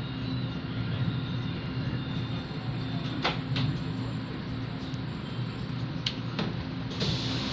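Inside an LRT-2 light-rail train (Trainset 14) running into a station: steady rumble and hum of the wheels and motors, with a few sharp clicks. A steady hiss sets in suddenly near the end.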